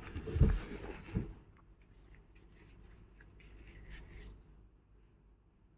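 Soft rustling and rubbing of something being handled, with a few low thumps in the first second, then faint scattered clicks and rustles that die away about four seconds in.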